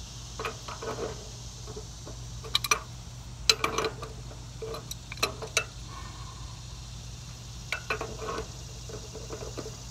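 Scattered metal clinks and clanks of a pipe wrench being set and adjusted on the fitting of an old hydraulic cylinder, in several short clusters of a few knocks each.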